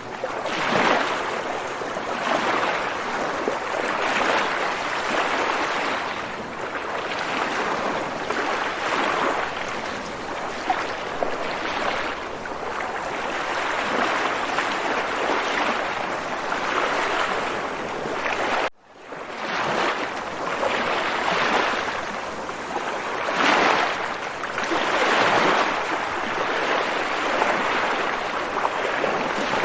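Water waves washing in, a steady rush that swells and ebbs every second or two. The sound drops out for a split second about nineteen seconds in, then resumes.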